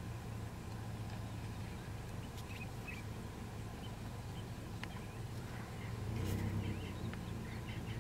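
Lions feeding on a kudu carcass, with sparse clicks and scattered bird chirps over a steady low hum; a deeper rumble swells briefly a little after six seconds.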